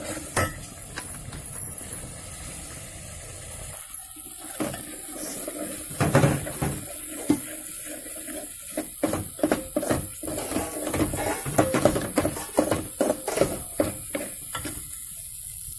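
Metal spoon scraping and knocking against a metal pot as thick masala paste is stirred while it fries in oil, over a light sizzle. The strokes grow frequent and irregular from a few seconds in.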